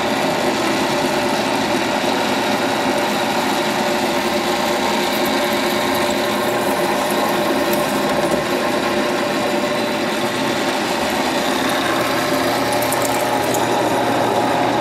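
Drill press running, its bit cutting down through an aluminium airframe tube, a steady mechanical whir.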